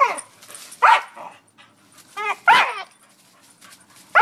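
Small dog barking at a tree: short, high, sharp barks that fall in pitch, about one a second, with two close together midway and another at the end.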